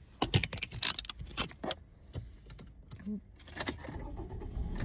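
A quick run of sharp jingling clicks in the first two seconds, then a few scattered clicks, over the steady low hum of an idling car.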